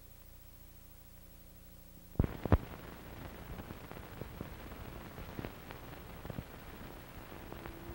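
Worn 16mm film soundtrack with no programme sound yet: a low steady hum, then two loud pops about two seconds in, followed by hiss with scattered crackles and clicks. A steady tone comes in near the end.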